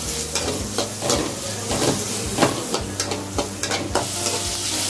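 Chopped onions sizzling as they fry in hot oil in an aluminium kadai, being sautéed, while a metal spatula stirs and scrapes them against the pan in irregular strokes.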